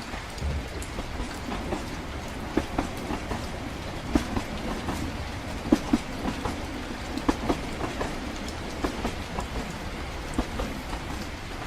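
Train running on the rails: a steady low rumble with irregular clacks and knocks from the wheels over the rail joints.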